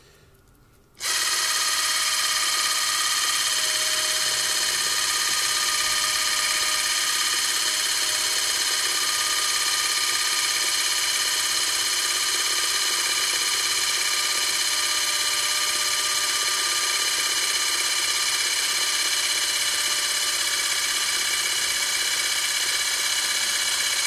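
Quartz Zoom Standard 8mm cine camera's wind-up clockwork drive running the film mechanism at 16 frames per second, starting about a second in with a steady, even whirr. It keeps running without a stall, its mechanism freshly oiled with gun oil.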